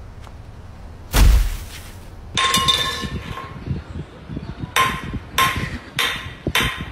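A metal drink can clanking and ringing against a concrete floor as a rat drags it along, in a string of sharp knocks that come faster near the end. About a second in there is a short, loud burst of noise.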